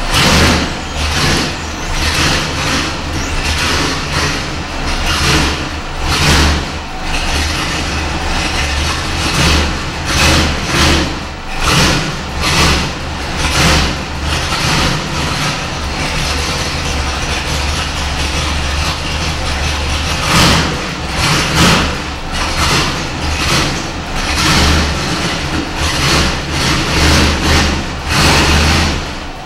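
532-cubic-inch big-block V8 in a lifted Ford mud truck running cold, its sound rising and falling in loudness about once a second.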